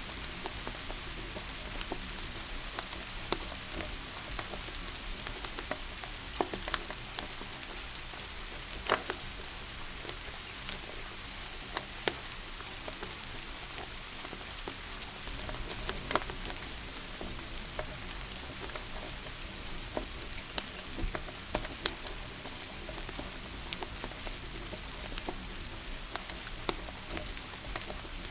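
Steady rain hiss mixed with a wood fire crackling: sharp pops and snaps scattered irregularly, every second or so, a few louder than the rest.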